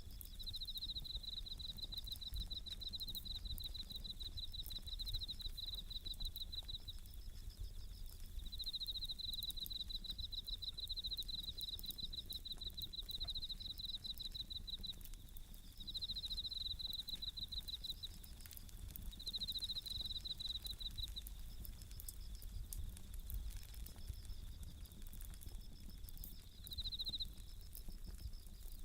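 Japanese bell crickets (suzumushi) singing in repeated pulsing trills, phrase after phrase, over the faint crackle and pops of a wood campfire.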